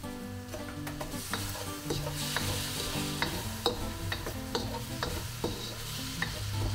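Chicken pieces and ginger sizzling in a hot wok as they are stir-fried with a wooden spoon, which knocks and scrapes against the pan about every half second.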